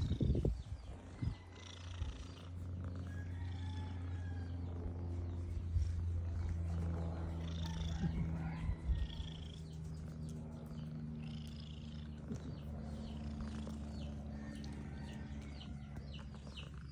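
Pet cat's steady, low, purr-like rumble, which the owner calls snoring. A few brief knocks come in the first half-second.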